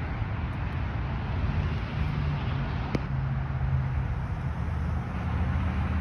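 Outdoor rumble of wind buffeting a phone's microphone mixed with road traffic, with a single sharp click about three seconds in.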